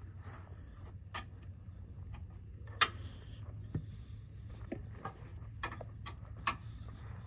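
Scattered light clicks and taps of hand tools on metal motorcycle parts, irregularly spaced, the sharpest about three seconds in, over a steady low hum.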